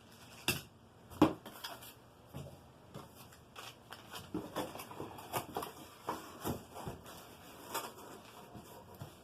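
Irregular clicks, knocks and rustles of packaging and plastic parts being handled during unpacking, the loudest knock about a second in.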